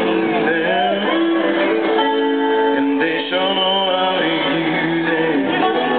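Rock music playing, a band led by guitar.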